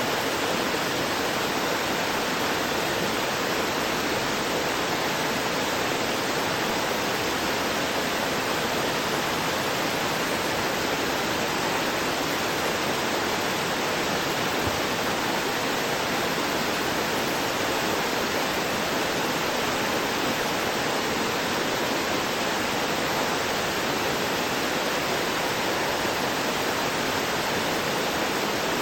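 Water pouring over a rocky waterfall into a stream, a steady rushing and gurgling with no breaks.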